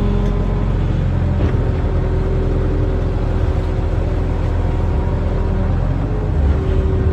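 Barge-mounted excavator's diesel engine running steadily under load, a low drone with a steady whine above it, and a brief knock about one and a half seconds in.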